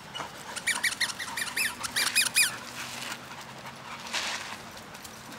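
A pit bull puppy gives a rapid run of about a dozen short, high-pitched squealing yips while play-fighting. The yips come over about two seconds.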